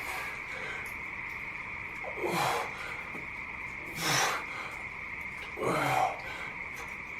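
A man breathing out hard, with a short grunt, on each rep of heavy dumbbell shrugs, three times about every two seconds.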